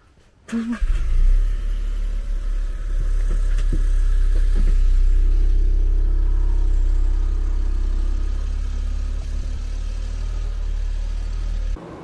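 Car driving away and along a winding road, heard as a loud, steady low rumble of engine, tyres and air. It starts abruptly about half a second in and cuts off just before the end.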